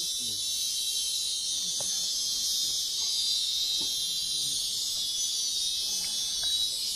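Steady, high-pitched drone of a dense insect chorus in tropical swamp forest, with a few faint ticks underneath.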